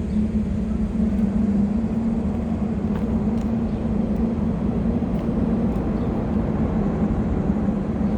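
Diesel freight locomotives running with a steady low hum and rumble.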